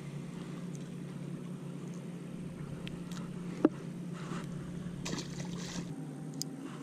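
Steady low hum on a boat, with a single sharp click about three and a half seconds in and brief bursts of hiss near the end.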